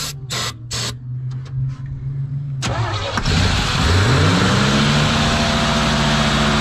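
A 1974 Chevy truck engine turning over on starting fluid, with short hisses of ether sprayed into the Quadrajet carburetor in the first second. About three seconds in the engine catches, revs up quickly and settles into a steady fast idle.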